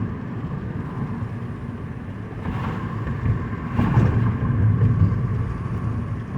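Cabin noise of a 2009 Mazda 5 cruising at about 40 mph with its automatic transmission in fourth gear: steady engine and tyre rumble, swelling louder briefly about two and a half and four seconds in.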